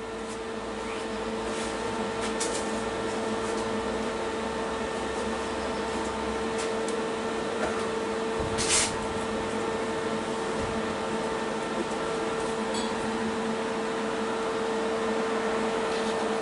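Steady machine hum with a high, even whine and its overtones. A few light clicks come near the start, and a short hiss about halfway through.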